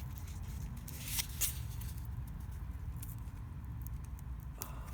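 Fingers picking and scratching at paper wrapping to open a sealed packet, with short paper rustles about a second in and again near the end.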